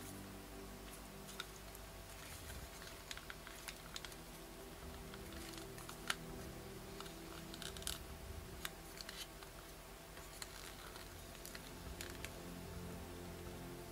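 Scattered faint clicks and light rubbing from hands handling a Hot Toys 1/6 scale plastic action figure as its head joint is turned and tilted, over soft background music.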